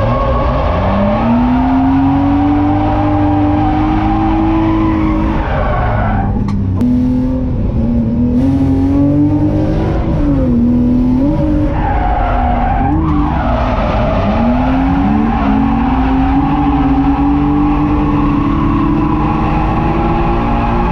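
BMW E30's M50B25 non-VANOS 2.5-litre straight-six at high revs while drifting, with tyres squealing. The revs climb about a second in, dip and surge repeatedly through the middle, then hold high near the end.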